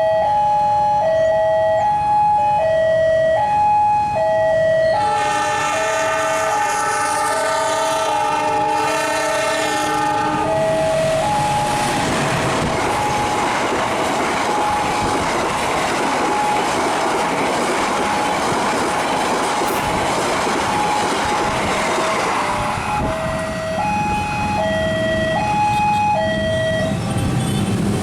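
Level-crossing warning alarm chiming two alternating tones, about one change a second. About five seconds in a train sounds a long multi-note horn, then passes over the crossing for roughly ten seconds; the alarm stops shortly before the end.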